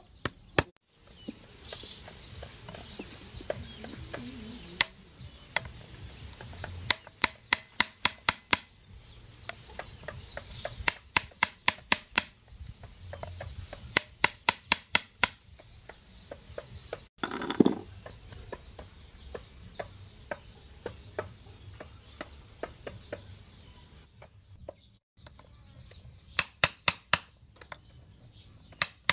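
A hammer tapping a steel chisel held against the handle of a metal spoon on a wooden stump, notching saw teeth. The sharp metallic taps come about five a second in four short runs with pauses between. A chicken squawks once, loudly, about midway.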